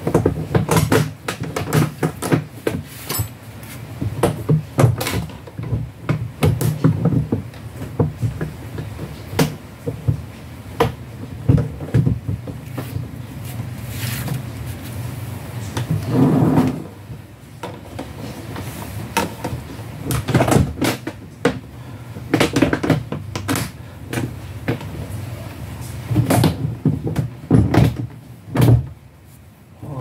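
Plastic casing of a washing machine being pushed and pressed by hand until a part snaps into place: irregular knocks, clicks and scraping of plastic.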